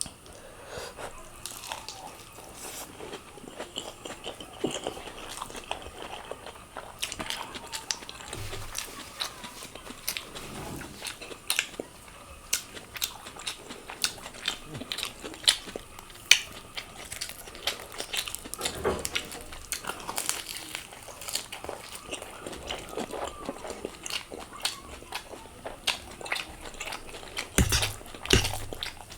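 A person eating spicy Korean noodles up close to the microphone: chewing with many short, sharp, wet mouth clicks at an irregular pace.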